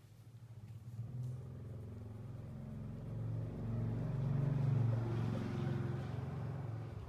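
Low engine rumble of a motor vehicle, swelling to its loudest about four to five seconds in and then easing off, like a vehicle passing by.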